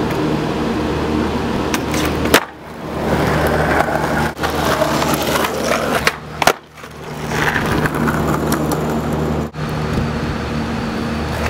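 Skateboard wheels rolling over rough concrete with a steady low rumble, broken by several sharp clacks of the board popping and landing, the loudest about two and a half seconds in.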